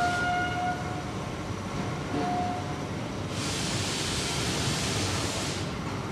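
Factory machinery noise in a melamine board laminating plant: a steady rumble, a short pitched toot at the start and another about two seconds in, then a rushing hiss lasting about two seconds.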